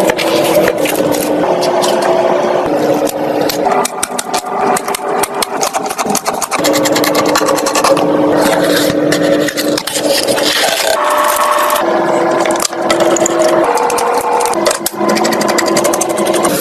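Dense clicking, tapping and scraping of computer parts being handled and fitted together, over a steady hum that shifts to a new pitch every second or two.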